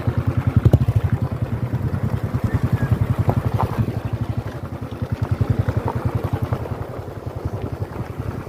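Single-cylinder motorcycle engine running at steady low revs while riding, its exhaust giving an even, rapid pulsing beat.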